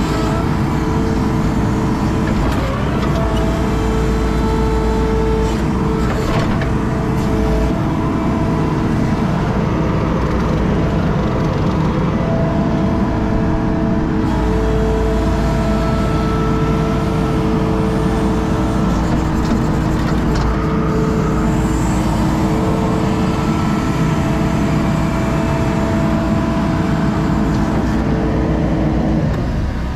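Skid steer engine running steadily under load while digging, a constant drone with pitched tones that shift as the load changes, and a few scraping knocks in the first several seconds.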